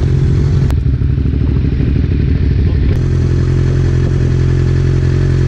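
Sport motorcycle's inline-four engine idling steadily at a standstill, with one short click just under a second in.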